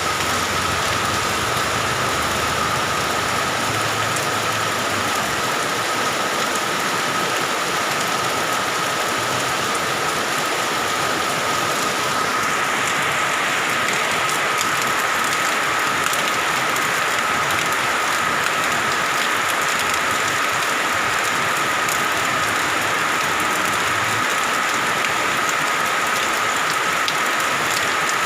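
Steady heavy rain falling, an even dense hiss that grows a little brighter about twelve seconds in, with a thin steady tone running under it.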